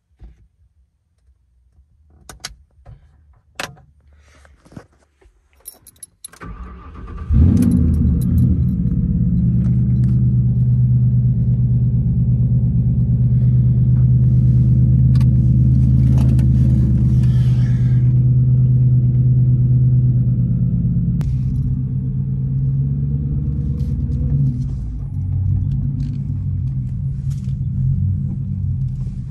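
A few key clicks and jingles, then a Ford Crown Victoria Police Interceptor's 4.6-litre V8 is started about six seconds in and runs at a steady idle, settling slightly lower about 21 seconds in.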